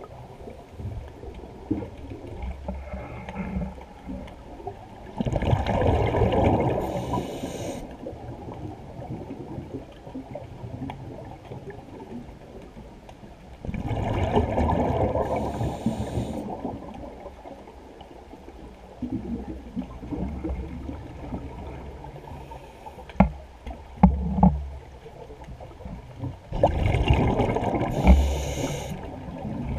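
Scuba diver's regulator breathing underwater: three gurgling rushes of exhaled bubbles, each two to three seconds long, about ten seconds apart, with quieter watery hiss between them. A few sharp clicks come between the second and third breaths.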